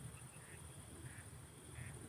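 A series of short, faint quack-like animal calls, about one every two thirds of a second, over a steady high insect hiss.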